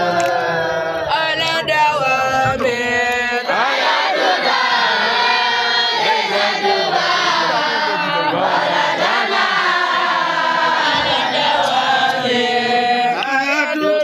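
A group of young boys' voices chanting together in unison, with many voices overlapping without a break.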